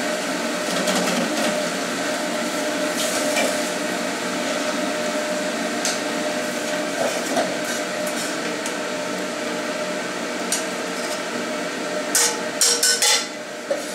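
Sweet and sour pork sizzling in a steaming wok over a gas burner, with a metal ladle stirring and scraping against the wok. A quick run of sharp ladle clinks on the wok comes near the end.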